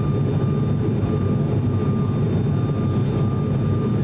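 Steady cabin drone of an ATR 42-600 in flight: the hum of its twin Pratt & Whitney PW127 turboprop engines and propellers, with a faint steady whine above it.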